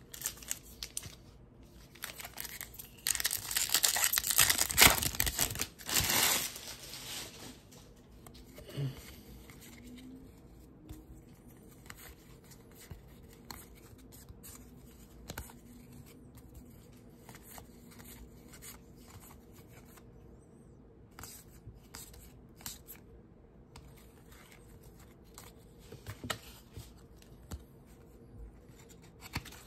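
A Topps baseball card pack wrapper torn open with a long crinkly rip a few seconds in. After that come soft clicks and rustles of trading cards being flipped through by hand.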